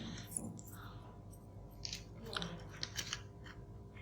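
Faint, scattered small clicks and scratches of handling work on an air-conditioner control circuit board, as test probes and a cable are moved and touched against it, over a low steady hum.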